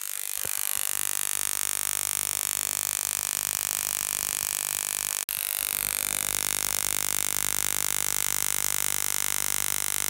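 Beru spark ignition coil from a combi boiler firing continuously, a rapid train of sparks jumping across the earthed electrode gap. It makes a steady, piercing, high-pitched buzz, with a momentary break about five seconds in.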